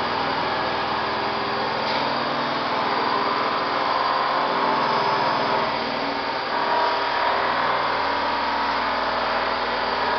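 CNC vertical machining centre milling a metal block under flood coolant: a steady machine whine with cutting noise and coolant spray, its pitch wavering a little as the tool moves.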